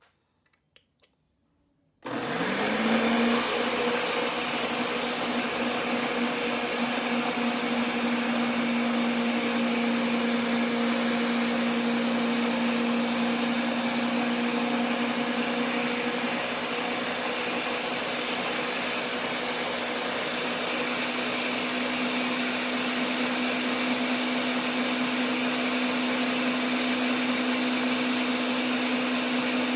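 Electric blender switched on about two seconds in, its motor spinning up to speed within a second and then running steadily as it blends aloe vera and rice water.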